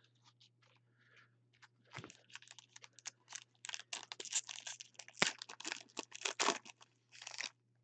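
Foil wrapper of a Panini Luminance football card pack being torn open and crinkled by hand: a few faint rustles, then from about two seconds in a dense crackling of the foil that stops near the end.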